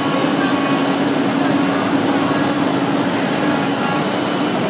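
Multi-head 4-axis CNC wood router running, its spindles and cutting making a loud, steady noise with one held tone.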